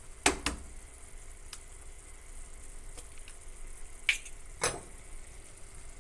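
Kofta and egg sauce simmering in a clay tagine with a faint, steady sizzle. It is broken by a few sharp clicks: two just after the start and two more about four seconds in, while a third egg is added.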